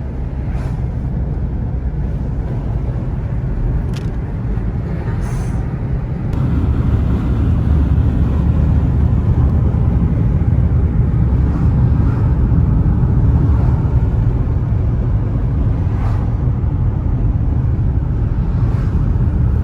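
Car driving, heard from inside the cabin: a steady low rumble of road and engine noise that gets louder about six seconds in.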